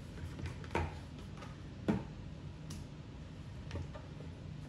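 A few scattered knocks of a kitchen utensil against a mixing bowl while mashed sweet potato is scooped into brownie batter, the sharpest about two seconds in.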